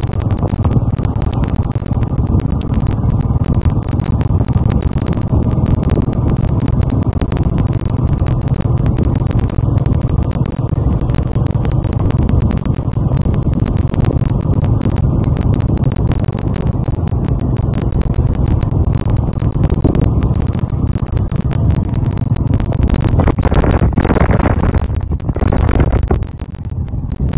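Motorcycle running steadily at road speed, heard from on the bike as a constant low rumble of engine and wind on the microphone. A little before the end, a couple of brief, sharper noises rise above the rumble.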